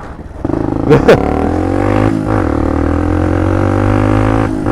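Small 50cc moped engine running under load at steady, held-down revs, a low even drone after a brief rise and fall in pitch about a second in; it won't rev up, which the rider puts down to the carburettor acting up.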